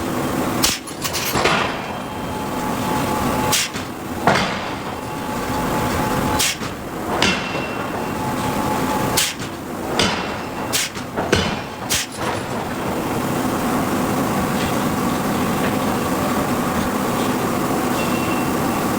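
Hydraulic forging hammer striking steel: about a dozen sharp, irregularly spaced blows, over a steady machinery hum that runs on alone for the last several seconds.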